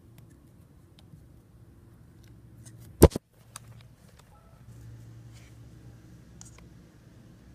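Faint scattered clicks over a low room hum, with one loud sharp click about three seconds in, followed by two smaller clicks.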